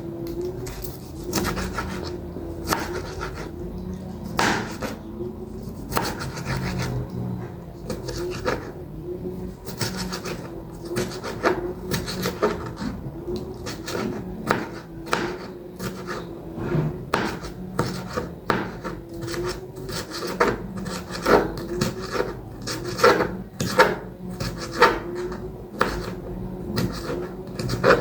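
A kitchen knife chopping vegetables on a wooden cutting board, in irregular runs of quick knocks, over a faint steady hum.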